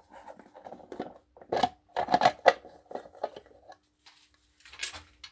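Plastic electrical enclosure lid being unscrewed and lifted off: a series of sharp clicks and knocks with scraping and rustling as the cover is handled.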